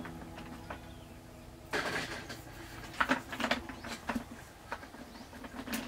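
Snail shells clicking and rattling against each other and a plastic bucket as a hand rummages through them: a rustling scrape about two seconds in, then scattered clicks.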